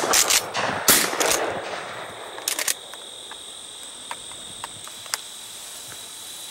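Two shotgun shots about a second apart, the first right at the start, each followed by a short echo. A few quick clicks come about two and a half seconds in, and insects trill steadily in the background.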